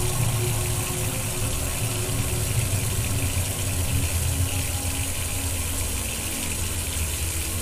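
Water running from a kitchen tap into a stainless steel sink: a steady splashing hiss, with a low steady hum underneath.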